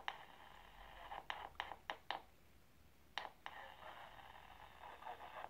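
Static hiss from a handheld ham radio's speaker, broken by sharp clicks: one at the start, four quick ones about a second in, and two more near three seconds. The hiss cuts out after the fourth click and comes back with the later pair.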